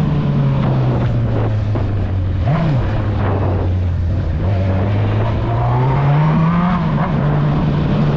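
Honda Hornet motorcycle's inline-four engine running under way, with wind noise. The engine note sags, gives a short blip up and down about two and a half seconds in, then climbs in pitch as the bike accelerates about six seconds in before settling steady.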